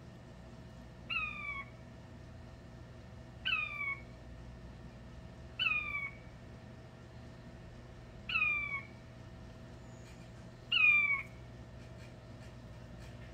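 Male king quail (mini button quail) crowing: five clear, piping calls that each fall in pitch and last about half a second, spaced about two and a half seconds apart, the last one the loudest.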